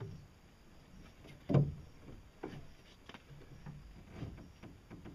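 Scattered light knocks and clicks of hands working on a pedal crank assembly (bearings, crank arm and bolt) mounted in a fiberglass boat hull, with one louder knock about a second and a half in.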